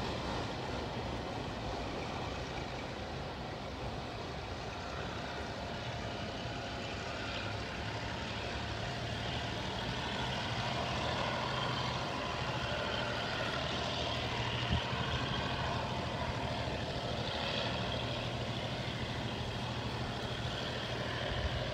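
Diesel locomotive engine idling steadily, with one short knock about fifteen seconds in.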